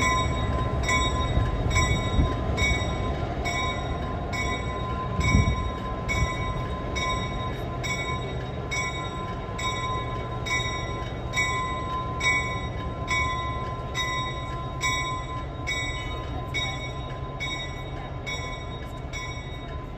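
EMD F3 diesel locomotive running with a steady low engine rumble while its bell rings evenly, about one and a half strikes a second. There is a brief louder bump a little past five seconds in.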